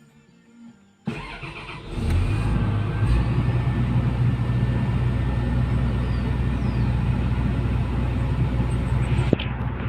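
Komatsu PC210 excavator's diesel engine starting about a second in, then running with a steady low hum.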